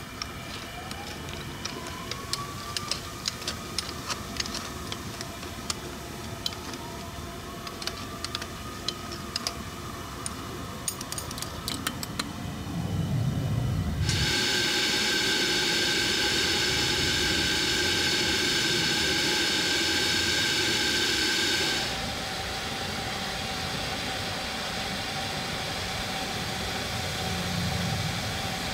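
Coal-fired live steam locomotive being fired up: sharp metal clinks of fire tools at the open firebox. About halfway a loud, steady hiss starts, and some eight seconds later it settles to a quieter steady hiss.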